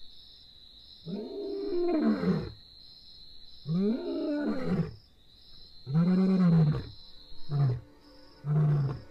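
Male lion roaring: three long, moaning roars, each rising then falling in pitch, followed by two shorter grunts as the roaring bout tails off.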